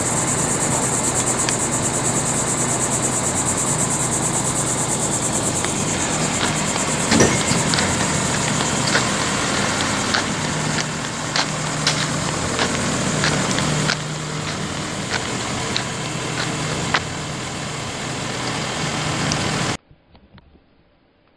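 A vehicle engine idling with a steady low hum, under a high, even insect buzz that fades about six seconds in. Scattered sharp clicks come from about seven seconds on, and the sound cuts off just before the end.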